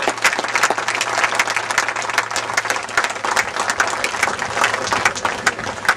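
Crowd applauding with many hands clapping; the clapping thins out near the end.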